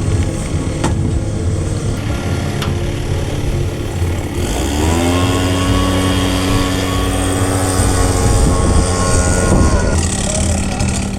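An engine running steadily. About four and a half seconds in it revs up, holds a higher steady pitch for about five seconds, then drops back to its lower running speed.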